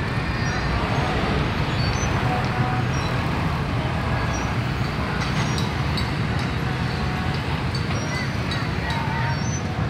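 Steady road traffic noise from trucks and motorcycles: a continuous low engine rumble, with people's voices mixed in.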